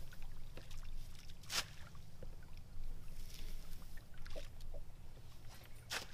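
Water lapping at a bass boat's bow over a low steady hum, broken by a few short sharp slaps. The strongest slaps come about a second and a half in and near the end.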